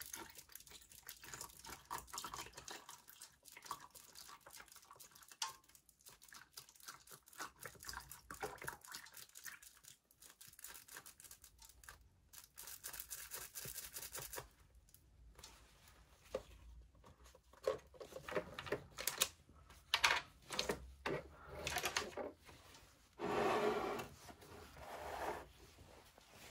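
Apple juice poured slowly from a juice box over ice cubes in a glass, with many small crackles and clicks from the ice. In the second half, louder knocks and handling noises from the glass and carton.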